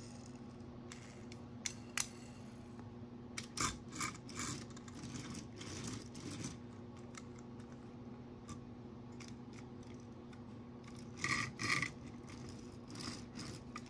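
Small toy car being handled, giving scattered clicks and rattles with a couple of short rattling bursts near the end: all kinds of racket.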